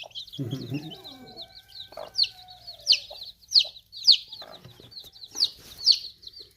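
Newly hatched chicks peeping constantly in high, short chirps, louder peeps coming about every half second. The mother hen clucks low just under a second in, and a longer, slightly falling call sounds from about one to three seconds.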